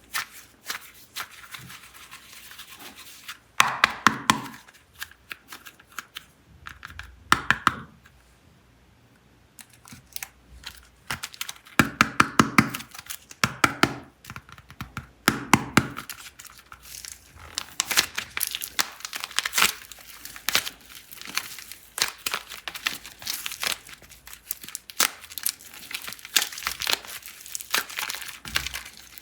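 Plastic packaging of air-dry clay being crinkled and torn open by hand: dense crackling in several louder bursts, with a brief quiet pause about a third of the way in, then steady crinkling.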